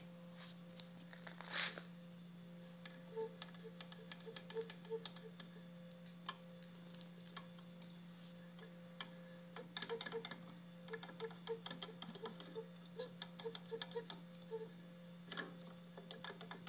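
Faint, irregular light clicks and slapping taps from a DLE 55 two-stroke gas engine, sometimes several a second, over a steady low hum. The owner is unsure whether this slapping is piston slap or bearing noise.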